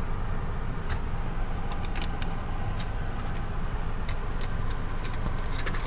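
Steady low rumble inside a car's cabin, with light plastic clicks and taps from a plastic iPad vent-mount bracket being handled: a quick run of clicks about two seconds in and a few more near the end.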